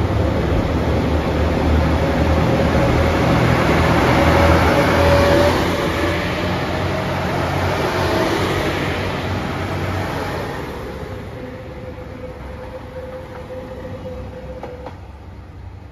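JR Shikoku 2700 series diesel express train pulling out and passing close by. Its engines run under power with a steady whine over wheel and rail noise. It is loudest about four to five seconds in, then fades as it draws away.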